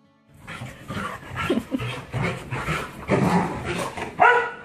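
Dogs at play, yipping and whining in excitement amid rough, scuffling commotion, with a louder pitched cry a little after four seconds in.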